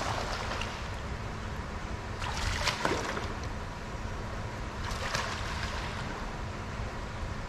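Water splashing and sloshing in an exhibit pool, in three bursts about two and a half seconds apart, over a steady low rumble.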